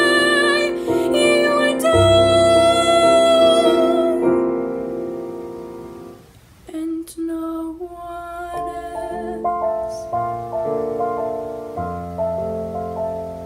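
A woman's singing voice holds a long final note over piano accompaniment, fading away about five seconds in. The piano then plays on alone, a slow line of separate notes.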